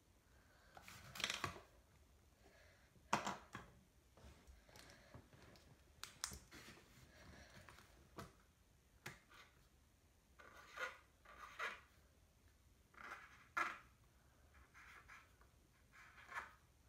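Faint scratching of pencil and marker tips on paper as a number is written out and traced, in short, irregular strokes with pauses between them.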